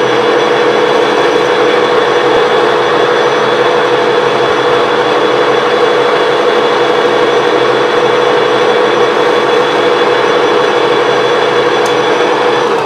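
Metal lathe running steadily as it turns a knife part, a constant machine drone with a strong hum, beginning to wind down at the very end.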